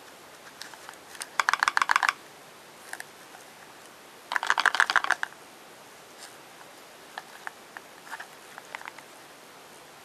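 Small cardboard box handled and turned in gloved hands: two bursts of rapid crackling clicks, each about a second long, around one and a half and four and a half seconds in, with scattered light ticks between.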